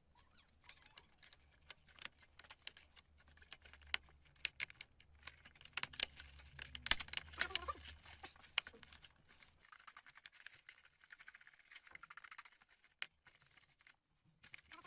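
Scattered light clicks and taps of small hard parts being handled at a workbench, thickest in the middle, over a faint low hum that stops about ten seconds in.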